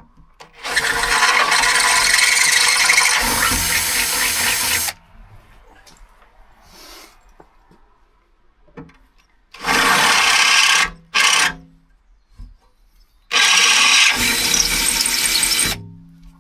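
Power drill boring a small hole into the van's original seat base, to give the swivel base's locating tabs room to drop through. It runs in three bursts: a long one of about four seconds, then two shorter ones, each winding down as the trigger is released.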